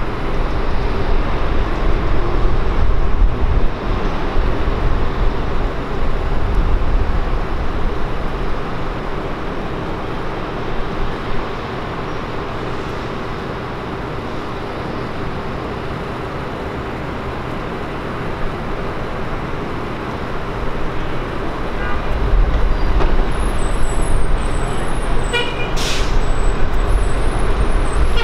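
Steady low engine rumble with a faint hum. It eases off in the middle and builds again near the end, where a few faint high chirps come in.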